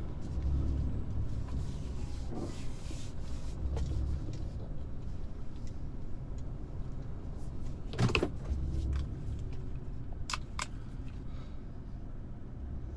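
Vehicle engine running, heard from inside the cabin as a steady low rumble. A knock about eight seconds in and two sharp clicks a couple of seconds later come from handling inside the cab.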